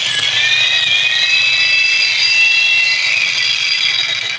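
Jackhammer running at full power with a steady, loud, high-pitched whine, then cutting off near the end. It started by itself because its switch was left in the on position.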